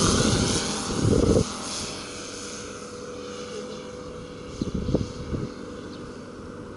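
Moki S180 five-cylinder radial petrol engine of a CY Models La-7 RC scale warbird flying past, loud with its pitch falling, then dropping off sharply about a second and a half in to a faint, distant steady drone. A few brief rumbles sound a little past the middle.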